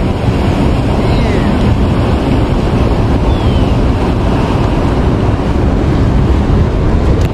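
Wind buffeting the microphone over the steady rush of fast-flowing spillway water, a loud, even noise with a heavy low rumble.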